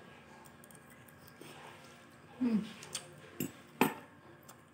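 Metal spoon clicking twice against a plate at the table, sharply, about three and a half seconds in, during quiet eating; a short hum of a woman's voice comes just before.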